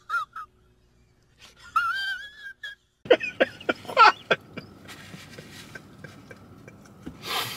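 Close-miked chewing of crispy food, with a run of sharp crunches starting about three seconds in, after a brief high hummed "mm" from a voice. A short breathy puff of air near the end.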